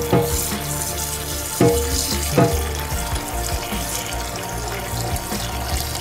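Tap water running into a pot of small grains, splashing steadily as they are rinsed, with a few short knocks near the start and about two seconds in.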